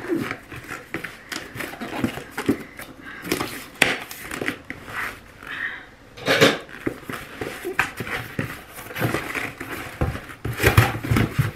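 A cardboard parcel being opened by hand: irregular rustling and scraping of cardboard and paper with scattered knocks and clicks, a louder knock about six seconds in and a busier stretch near the end.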